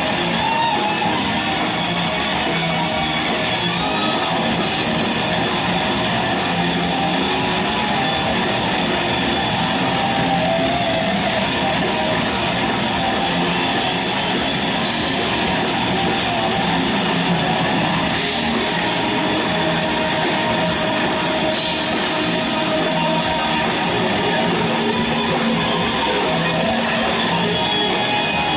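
Thrash metal band playing live, with distorted electric guitars and drums at a loud, unbroken level.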